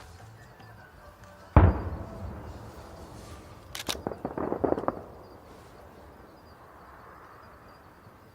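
A firework shell bursting with a single loud boom that rumbles away. About two seconds later comes a sharp snap, then a quick run of crackles lasting about a second.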